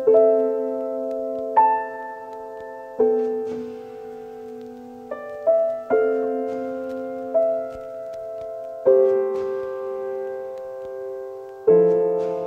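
Background music: a slow keyboard piece in a piano sound, single notes and chords struck every second or two and left to ring.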